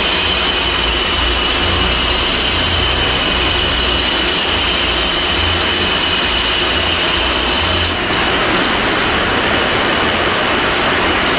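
Freewheeling ARC MT-009 rear bicycle hub ticking as the wheel coasts on a stand, its pawls clicking so fast they merge into a steady high-pitched buzz. Heavy rain hisses loudly over it.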